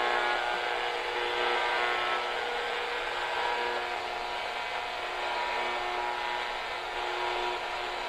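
Radio ghost box sweeping the shortwave band: steady radio static hiss, with faint steady whining tones running through it.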